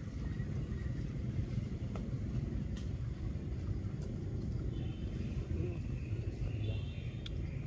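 A steady low rumble, with faint high-pitched chirps from about five seconds in to near the end.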